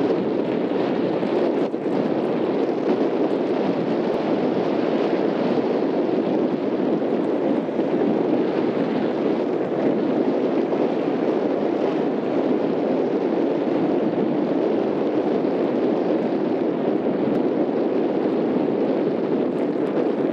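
Steady wind rushing over the microphone, an even, continuous rush with no breaks or gusts standing out.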